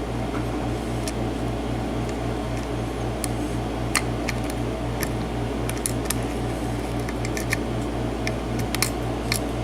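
Steady low mechanical hum with a fast, regular pulse, over scattered faint clicks of a hook pick working the serrated pin stacks of a six-pin US Lock mortise cylinder while single-pin picking the last pin that will not set.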